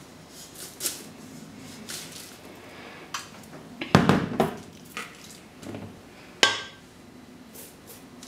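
Spatula scraping and tapping against a stainless-steel mixing bowl as crumbly streusel dough is tipped out into a baking pan, with a loud metallic clank about four seconds in and another sharp knock about six and a half seconds in.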